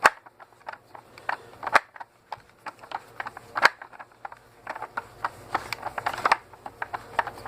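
Phillips screwdriver working at a screw in a plastic telephone housing: irregular small clicks and scrapes, the bit slipping in the screw head because it is not quite the right size.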